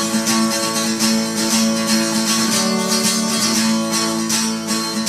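Acoustic guitar strummed in a steady rhythm, about two to three strokes a second: the instrumental intro of a song, before the vocals come in.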